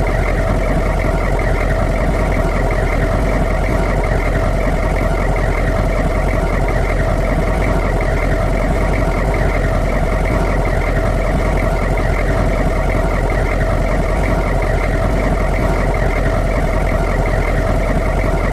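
Humvee's V8 diesel engine idling steadily, with no change in speed.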